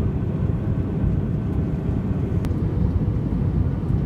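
Jet airliner on landing approach, a steady low rumble with a faint whine above it.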